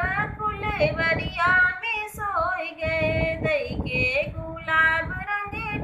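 A woman singing a folk dance song (nach geet) solo, in long held, gliding notes.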